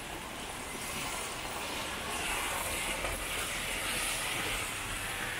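Rain falling on a wet street, with a louder hiss of tyres on the wet road that swells a second or two in and eases near the end.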